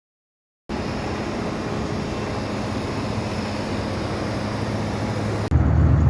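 Steady vehicle running noise, an even rushing sound with a faint low hum, after a brief dropout. About five seconds in it changes suddenly to a louder, deeper engine hum.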